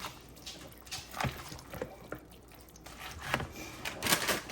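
Drained diced potatoes being tipped and mixed into a bowl of cream of chicken soup and shredded chicken: wet squishing with a utensil knocking against the bowl several times.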